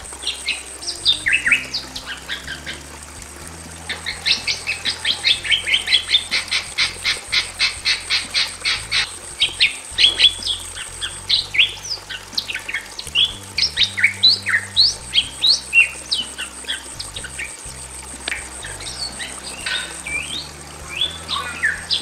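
A pair of Bali mynas calling. About four seconds in comes a fast run of evenly repeated notes, about five a second, lasting some five seconds, and it is followed by scattered sharp whistles and squawks that slide up and down in pitch.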